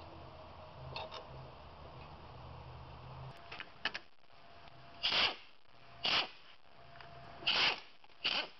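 Screwdriver turning a screw out of a Lanair waste-oil burner's metal preheater block: a few light clicks, then four short scraping rasps about a second apart in the second half.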